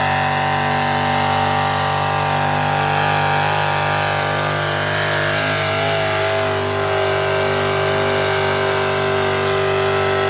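Modified pulling tractor's engine running hard at high revs while hooked to a weight-transfer sled: a loud, steady drone of many layered tones that wavers a little in pitch about halfway through.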